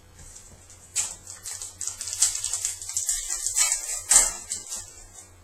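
Trading cards being handled at close range: a quick run of crisp clicks and rustles starts about a second in, peaks about four seconds in, and dies down near the end.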